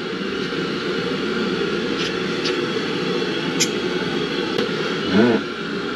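Steady mechanical hum throughout, with a few faint clicks as wire connectors are pushed back onto a boiler's circuit board.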